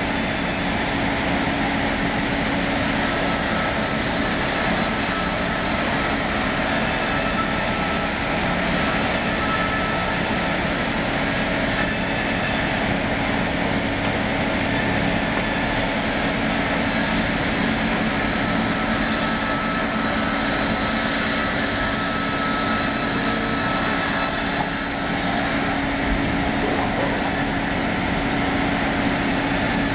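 Log sawmill machine running and sawing a log lengthwise: a steady mechanical hum with a constant drone that does not let up.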